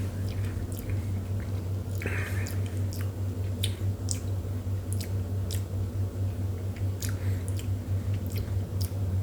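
Mouth sounds of a person tasting bourbon: scattered small wet clicks and smacks as the whiskey is worked around the mouth, over a steady low hum.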